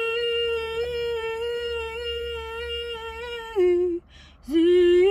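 A woman singing unaccompanied, holding one long steady note, then stepping a little lower. She breathes in about four seconds in and starts a new note that slides upward near the end.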